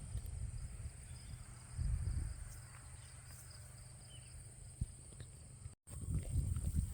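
Steady high-pitched insect chorus with uneven low wind rumble on the microphone.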